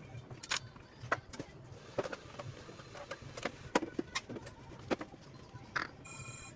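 Irregular sharp clicks and taps, roughly one or two a second, over a low steady hum, with a brief buzzy tone near the end.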